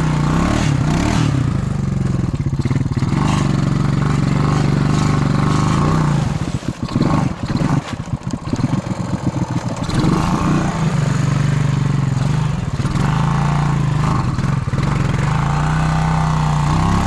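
Honda Rancher 350 ATV's single-cylinder engine held at high revs as the quad sits stuck in a mud hole. About six seconds in the revs drop to a slow, chugging low speed, then climb back up about ten seconds in.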